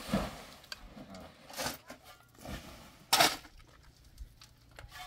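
Clatter of hard objects being handled: three short knocks or scrapes, the loudest about three seconds in, with a few faint clicks between.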